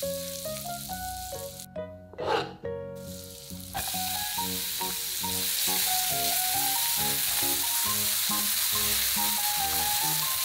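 Minced garlic sizzling in hot melted butter in a frying pan: a dense, steady hiss that sets in suddenly about four seconds in as the garlic hits the butter, after a short loud burst of noise about two seconds in. A plucked background melody plays throughout.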